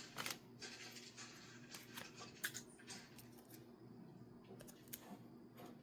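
Faint rustling and scattered light clicks of paper and plastic mail packaging being handled, over a low steady hum.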